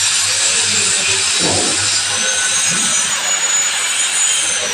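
Hand saw cutting a workpiece at a bench vise: a steady rasping of the blade, with a faint high tone falling in pitch near the end.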